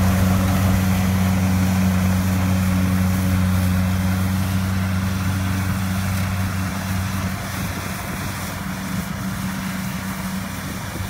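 Rice combine harvester's engine running steadily with a low hum, growing gradually fainter over the second half as it moves off.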